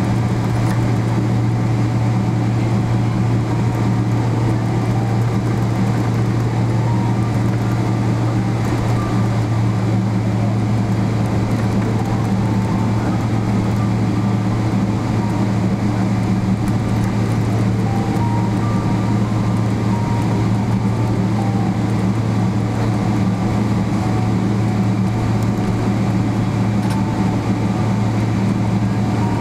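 Steady low hum of a Boeing 777-300ER's GE90 engines at taxi idle, heard inside the passenger cabin as the airliner taxis after landing.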